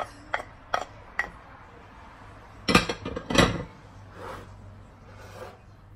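Metal spoon tapping and scraping against a cut-glass bowl as chopped shrimp are spooned out, with a few light clinks in the first second or so. About three seconds in there is a louder clatter of dishes.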